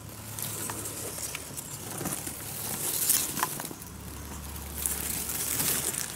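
Rustling of long grass stems and dry leaf litter being brushed through by hand, with a few light crackles and clicks.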